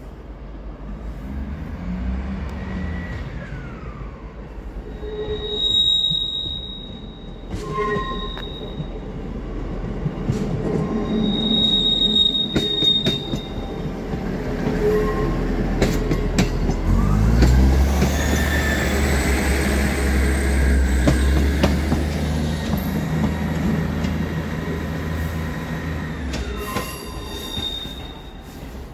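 ScotRail class 158 diesel multiple unit on the track, its wheels squealing in short high bursts around 6 s and 12 s and again near the end, with a few sharp clicks. About 17 s in, the diesel engine note rises and stays loud for several seconds before easing off.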